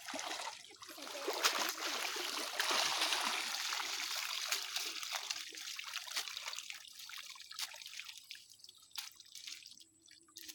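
Water splashing and trickling as a fishing net is worked through shallow water. It is loudest in the first few seconds, then thins out to scattered drips and small splashes.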